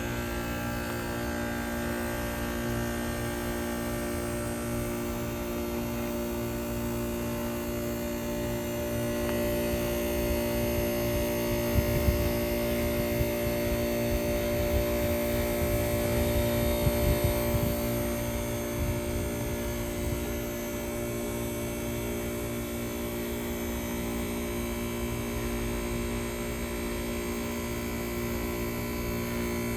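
Copeland compressor of a 1999 Carrier Cube 38YCC heat pump running with a steady droning hum made of several held tones. A louder low rumble with a few sharp knocks comes in about a third of the way through, then settles back to the steady drone.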